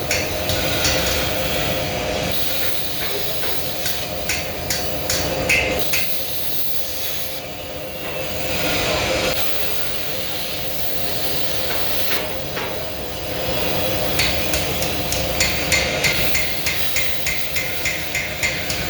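Repeated hammer strikes on metal over a steady machine hum, coming in quick runs of several knocks a second toward the end.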